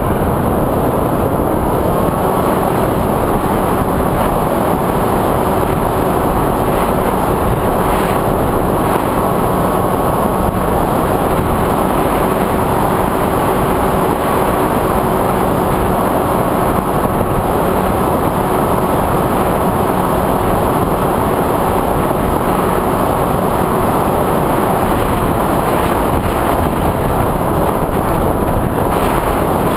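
An FPV drone in flight, recorded by its onboard camera: steady propeller and motor noise mixed with wind rushing over the microphone, with a faint hum of steady tones under it.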